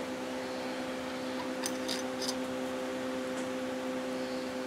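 Steady mechanical hum in a small room, with three light metallic clicks about two seconds in as small turbocharger parts are handled and slid onto the shaft.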